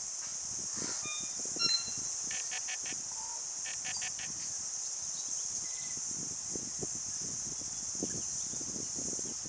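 Steady, high-pitched drone of insects, with short runs of four quick chirps twice, about two and a half and four seconds in, and a few single chirps just before. No rooster crow is heard.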